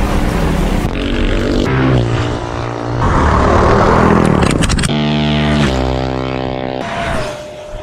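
Small gas engines of minibikes and a go-kart revving and passing in quick succession, with the pitch rising and falling and sudden changes between passes. In the middle, loose gravel sprays and crunches under a sliding kart.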